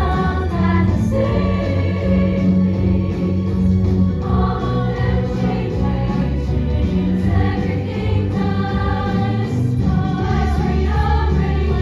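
A chorus of young women singing together over instrumental accompaniment with a strong, steady bass line.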